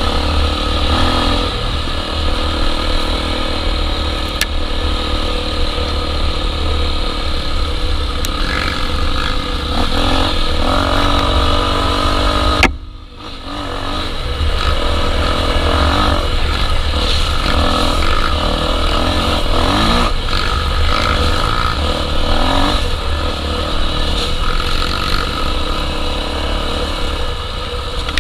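Honda Tornado 250 single-cylinder four-stroke engine running under way, its revs rising and falling with the throttle, over heavy wind rumble on the microphone. About halfway through, the sound cuts out suddenly for about a second and then comes back.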